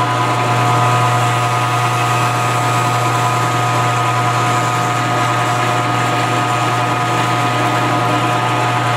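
Milling machine spindle running steadily as a #31 drill bit cuts through an AR-15 front sight base, a constant motor hum with a few steady whining tones.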